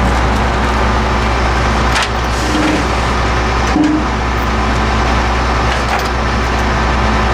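Volumetric concrete mixer truck's engine running steadily at a raised idle of about 1200 RPM, driving the PTO hydraulics as the hydraulic ram lifts the mixing auger. Two short knocks sound about two and four seconds in.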